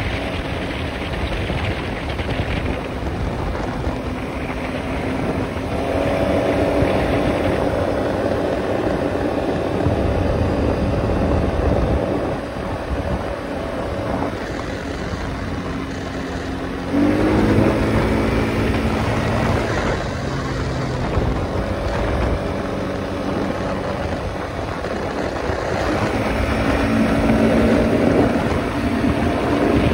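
ATV engine running under load at road speed, pulling harder a few times as it accelerates, most sharply a little past halfway. Wind buffets the microphone throughout.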